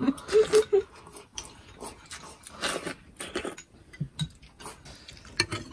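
Eating sounds at a meal: chopsticks tapping porcelain bowls, soup being sipped and food chewed, heard as scattered light clicks and small mouth sounds.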